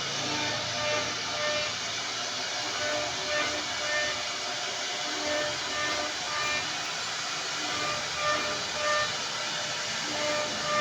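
CNC router cutting wood: a steady hissing cutting noise, with short tones coming and going as the machine's motors change speed.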